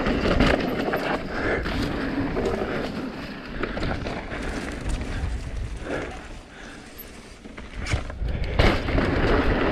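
Mountain bike riding fast down a dirt jump trail: tyre noise and wind rush, dropping quieter for about a second and a half past the middle, then two sharp knocks near the end as the bike comes down onto the dirt.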